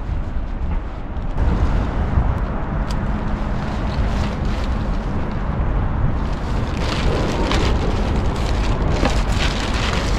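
Wind buffeting the microphone with a continuous low rumble, and rustling in the second half.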